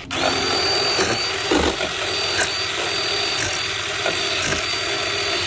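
Ryobi cordless electric chainsaw switched on and running steadily with a high whine, its chain slicing a pickle against a wooden board.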